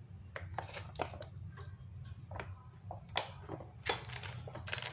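Irregular light clicks and knocks of cookware and utensils being handled, over a steady low hum.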